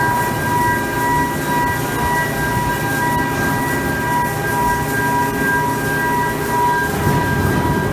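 Steady machinery noise from pipe welding equipment, a low rumble under a constant high-pitched whine; the lowest of the whine's tones drops out about seven seconds in.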